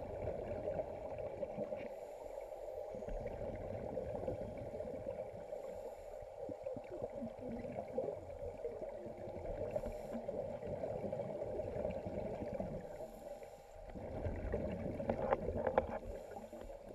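Muffled underwater gurgling of a scuba diver's exhaled bubbles from the regulator, rising and falling with her breaths, with a louder, fizzier burst of bubbles near the end.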